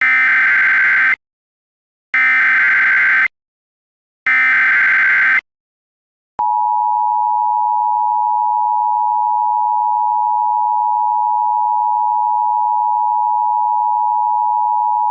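Emergency Alert System signal. First come three bursts of SAME digital header data, a shrill two-pitch data warble, each about a second long with about a second of silence between. Then, about six seconds in, the steady two-tone EAS attention signal starts and holds.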